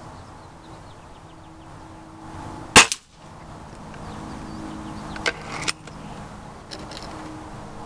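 A single shot from a Beeman RS2 break-barrel spring-piston .22 air rifle about three seconds in: a sharp crack with a quick second knock just after it. Two lighter clicks follow a couple of seconds later, then faint ticks.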